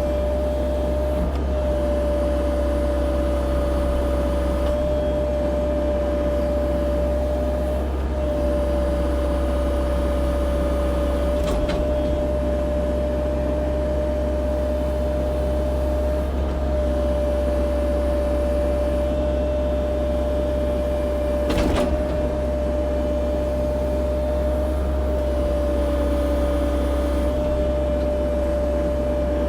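CAT 304 E2 mini excavator running steadily, a low engine drone with a constant whine over it. Two short sharp knocks, about a third and about two thirds of the way through.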